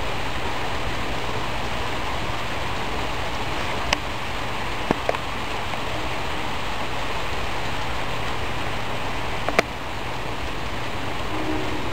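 Steady rain pouring down in a thunderstorm, with a few sharp clicks. Near the end a horn begins sounding a steady chord.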